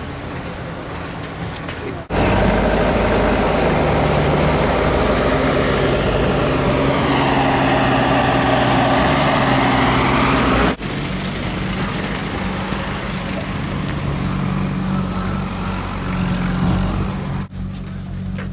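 Heavy diesel engine of a construction machine running loud and steady, its pitch dipping and rising once near the middle. It starts abruptly about two seconds in and cuts off about eight seconds later, leaving a quieter steady engine hum.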